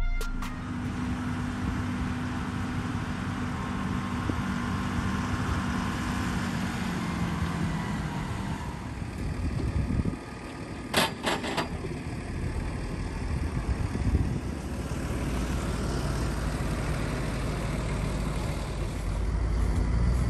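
Tractor and pull-type forage harvester running steadily under load, picking up haylage from the windrow and blowing the chopped crop into a forage wagon. The sound dips briefly about ten seconds in, then a few sharp clicks follow.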